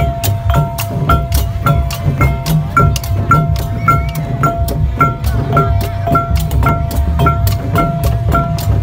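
Khmer procession drum music: drums beating under a steady pulse of sharp, ringing small-cymbal strikes about twice a second, with a held high note running through.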